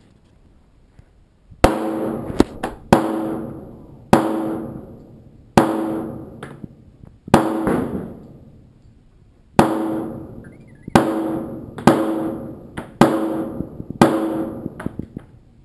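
Ten shots from a .40 S&W Walther P99 QA pistol, fired steadily one to two seconds apart and coming a little faster near the end. Each shot rings out and echoes off the range walls before the next.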